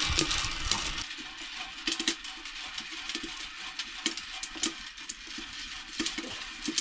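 Corn kernels popping and rattling in a hot pan: irregular sharp clicks, a few a second, over a faint hiss.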